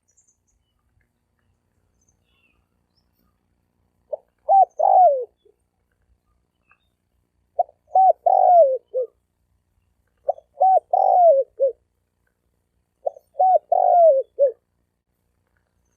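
Male spotted dove cooing. Four phrases of several short coos each come about three seconds apart, starting about four seconds in, and each phrase ends on a longer falling note.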